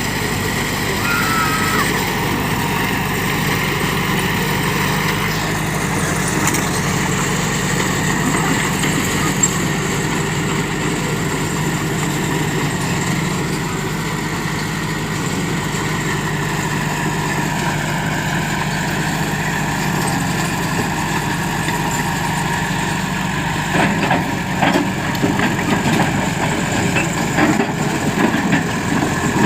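Heavy diesel engine of a bulldozer running steadily, with irregular clanks and knocks in the last few seconds.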